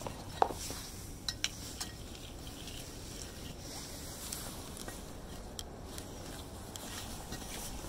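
A few sharp metallic clinks and knocks. The loudest comes about half a second in with a brief ring, three more follow within the next second and a half, and after that there are only faint scattered ticks.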